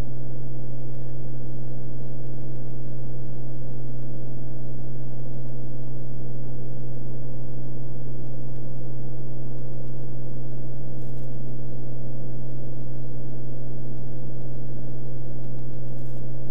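Steady drone of a Beechcraft Bonanza F33's six-cylinder piston engine and propeller in flight, heard inside the cockpit as a constant low hum that does not change.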